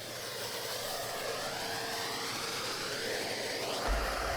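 Numatic James canister vacuum cleaner running on straight suction, its rushing airflow growing louder over the first second as the motor comes up to speed, with a faint whine that shifts in pitch as the floor tool picks up debris from a wood floor.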